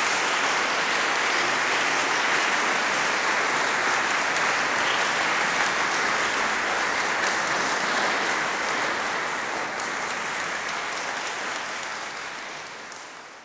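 Concert audience applauding, a dense steady clapping that fades away over the last couple of seconds.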